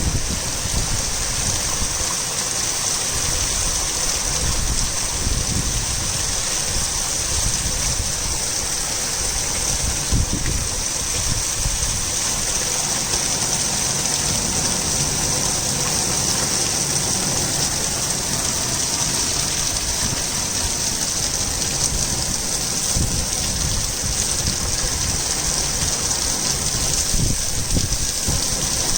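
Torrential rain pouring steadily, a constant hiss with an uneven low rumble underneath.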